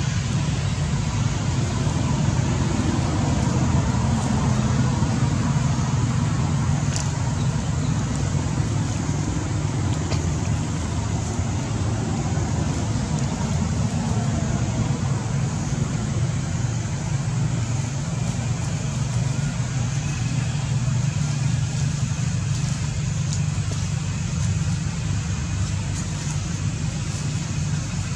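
Steady low rumble with a fainter hiss above it, unchanging throughout.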